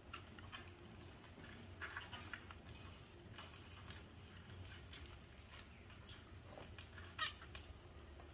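Faint rustling and scattered small clicks of several hamsters rummaging and eating in wood-shaving bedding and seed mix, with one sharper click about seven seconds in, over a low steady hum.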